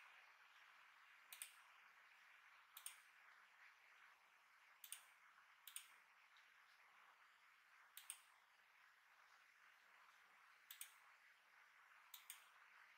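Faint clicks of a computer mouse button, each a quick press-and-release pair, about seven of them spread unevenly over a low hiss of room tone.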